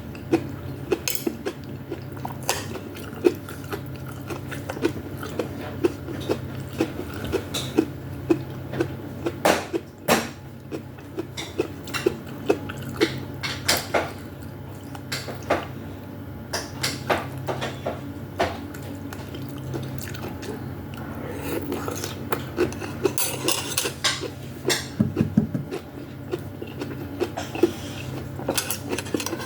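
A spoon or chopsticks clinking against a soup bowl again and again, with small wet eating sounds from someone eating vegetable soup with meatballs. A steady low hum runs underneath.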